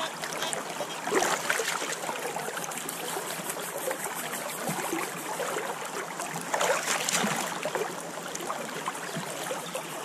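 Gold pan of creek gravel being swirled and dipped in a flowing creek: water sloshing and trickling in and over the pan, with a couple of louder swishes, over the steady run of the creek.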